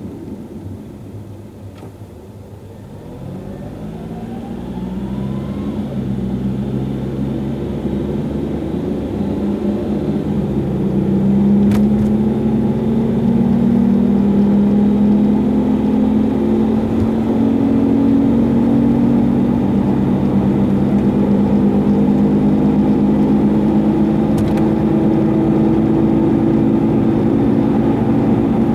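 Car wheel hub bearing droning from the suspension, a low humming 'go-go-go' that rises in pitch and loudness over the first ten seconds or so, then holds steady. The owner takes it for a worn hub bearing, failing again after fewer than 30,000 km since it was last replaced.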